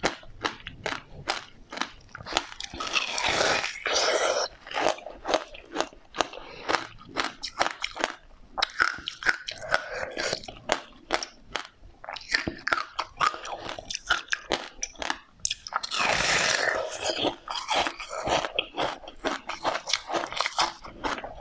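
Close mouth sounds of a person biting and chewing seedy, juicy passion-fruit pulp: many rapid crisp crunches and wet chewing, with two longer sucking slurps, one about three seconds in and one about sixteen seconds in.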